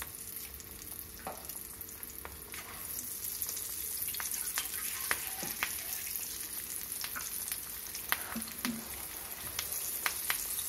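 Masala-coated taro root (colocasia) pieces deep-frying in hot oil in a kadai: a steady sizzle with frequent sharp crackles and pops, a little louder after the first few seconds.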